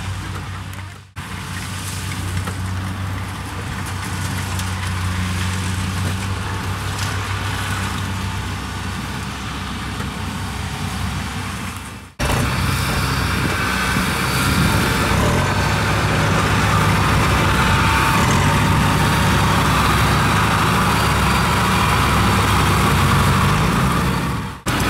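Engines of rice harvest machinery, Kubota combine harvesters and tracked rice carriers, running steadily. Edits cut the sound off briefly about a second in and again about twelve seconds in; after the second cut the engine noise is louder, close to a crawler carrier loaded with rice sacks.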